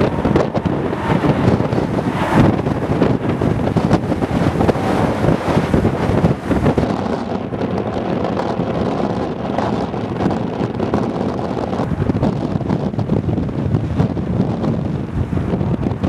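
Strong wind buffeting the microphone in uneven gusts. Under it for the first several seconds is the jet-engine noise of an airliner on the runway, fading out about seven seconds in.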